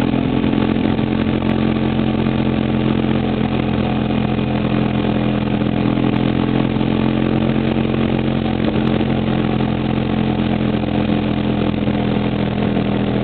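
Engine of the towing vehicle running steadily at one even speed, with a constant rushing noise over it.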